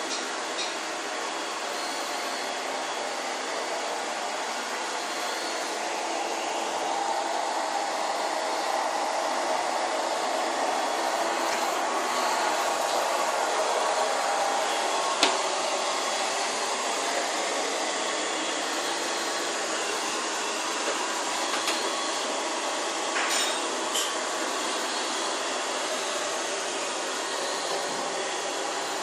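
Vacuum cleaner running steadily, a little louder in the middle stretch, with a few short clicks and knocks.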